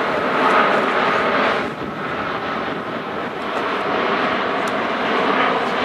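Airbus A380's four turbofan engines, a loud, steady rushing jet noise as the airliner flies past close by; the noise eases a little about two seconds in, then builds again.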